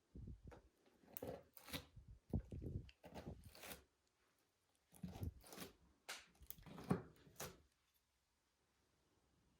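Slime being squeezed and kneaded by hand: a string of short, irregular sticky squishes and crackles, stopping about eight seconds in.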